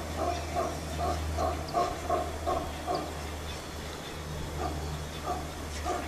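Brown howler monkey calling in a rhythmic series of short, grunt-like pulses, about two or three a second. The pulses pause about halfway and then resume. A steady low hum runs underneath.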